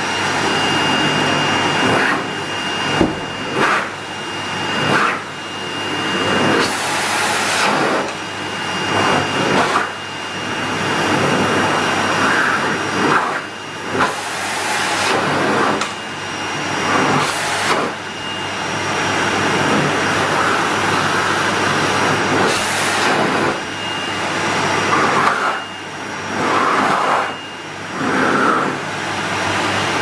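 Henry canister vacuum cleaner running, a steady rush of air over its motor's whine. Its level keeps dipping and coming back up, every second or two.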